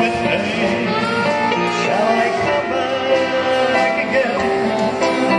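A live band playing, with a man singing into a microphone over a drum kit and other instruments.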